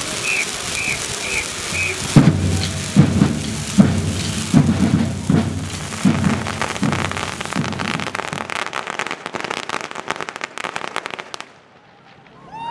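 Pyrotechnic spark fountains on correfoc fire-beasts hissing and crackling, with a run of heavy thuds from about two to eight seconds in. The crackle thickens, then cuts off suddenly shortly before the end.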